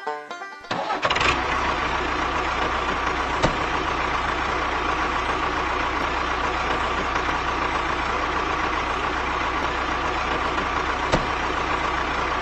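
An engine starting abruptly under a second in and then running at a steady idle, with a sharp click about three seconds in and another near the end.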